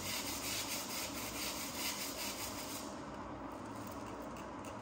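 Stiff tire brush scrubbing the rubber sidewall of an off-road tire in quick back-and-forth strokes, working acid prep cleaner into it to strip old silicone dressing. The strokes ease off about three seconds in.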